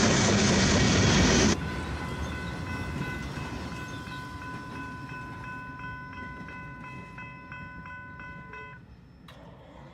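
A freight train passing close by for the first second and a half. Then a railroad crossing signal bell rings in rapid, even strokes of about three a second, fading and stopping near the end, followed by a single click.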